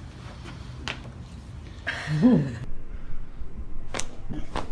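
A few sharp cracks from a chiropractic adjustment: a faint one about a second in, the loudest about four seconds in, and a smaller one just after it. About two seconds in, a person lets out a short vocal sound that rises and falls in pitch.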